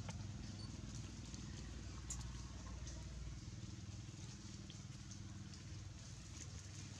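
Low, steady hum of an engine running, like a motor vehicle idling nearby; its deepest part drops away about three and a half seconds in, with a few faint ticks over it.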